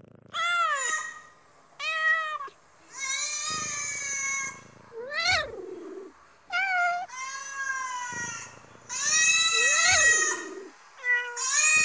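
Kittens meowing repeatedly, about eight high-pitched calls that rise and fall in pitch, some overlapping as if more than one kitten is calling at once.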